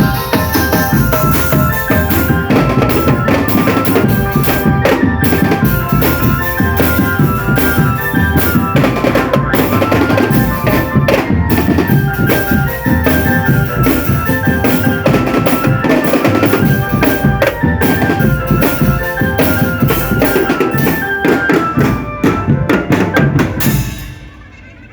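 A marching drum band playing: bass drums and snare drums beating out a steady rhythm under a high melody line of clear, stepping notes. The music fades out near the end.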